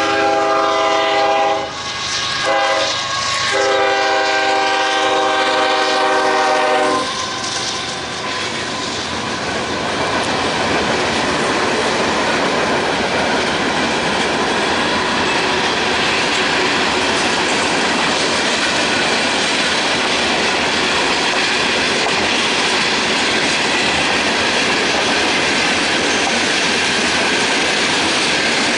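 A freight train's air horn sounds a chord, broken briefly about two seconds in, and stops about seven seconds in. After that comes the steady noise and clickety-clack of a long freight train's cars rolling past.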